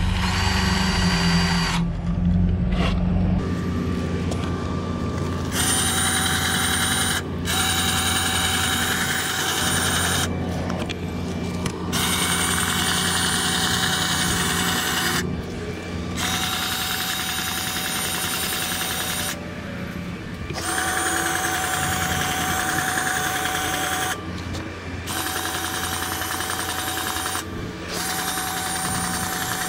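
Battery-powered grease gun motor whirring in repeated runs of two to three seconds with short pauses, pumping grease into the forklift's steering knuckle and kingpin fittings. A low rumble in the first few seconds stops before the whirring begins.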